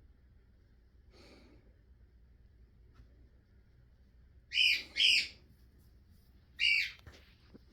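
Barnacle goose gander giving three short, high calls: two in quick succession about four and a half seconds in, and a third about a second and a half later.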